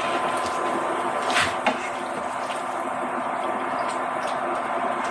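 Bacon sizzling in its grease in a frying pan, a steady hiss, with a couple of short clicks about a second and a half in.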